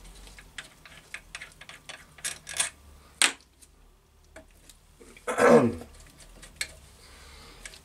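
Small clicks and light clatter as the thumb screws holding the resin vat of an Elegoo Saturn 8K resin printer are undone, with one sharper click about three seconds in. A little after five seconds comes a short groan that falls in pitch, the loudest sound here.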